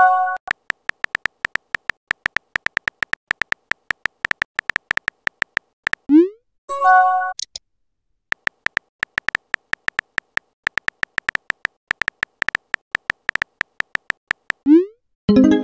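Smartphone keyboard tap clicks, many a second, as chat messages are typed. The typing breaks off at about six seconds and again near the end; each time a short rising swoop is followed by a brief chiming message tone.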